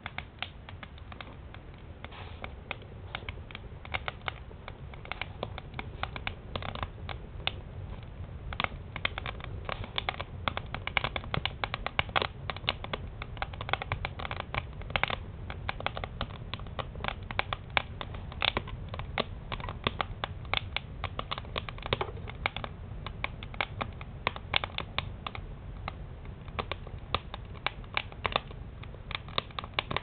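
Split wood burning in an open stove firebox, crackling and popping in irregular sharp snaps over a low steady rumble. The crackling grows busier after the first several seconds.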